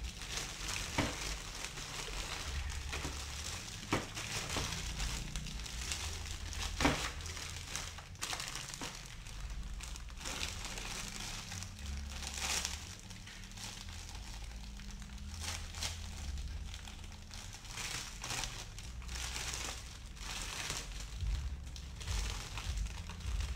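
Clear plastic packaging bag crinkling and rustling as hands rummage in it and work it open, with a few light knocks near the start.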